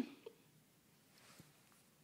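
Near silence: room tone of an empty room, with a faint click about a quarter second in.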